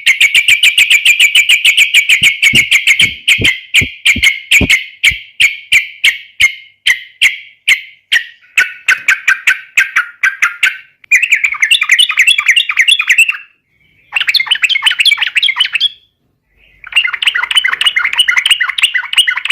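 Yellow-vented bulbul (trucukan) singing loudly in full song. A long fast run of sharp repeated chirps gradually slows, then come three bursts of dense bubbling chatter separated by short pauses.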